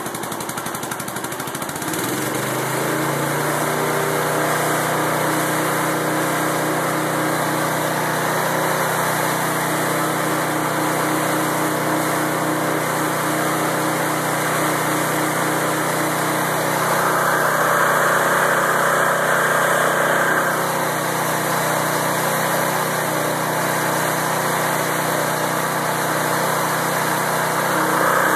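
Small lawnmower engine driving a homemade alternator generator under the load of a refrigerator and freezer. It comes up in speed about two seconds in, its pitch rising as it recovers from being bogged down by the motors' start-up surge, then runs steadily. It gets briefly louder about two-thirds of the way through.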